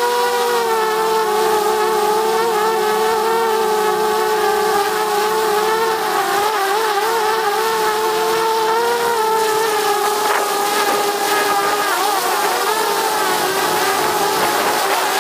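DJI Mavic Mini's propellers and motors whining steadily while the drone hovers, heard at close range from the camera mounted on top of it. The pitch wavers slightly as the motors keep adjusting, dipping a little about nine seconds in.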